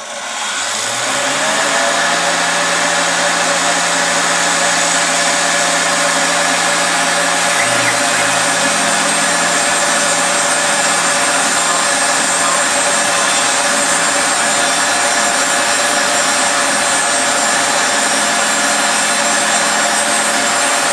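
Tormach PCNC 770 mill spindle spinning up over the first second or two, then running steadily at about 10,000 RPM with a 1/16-inch two-flute endmill cutting the corners of a USB cutout in an enclosure box. The sound cuts off suddenly near the end.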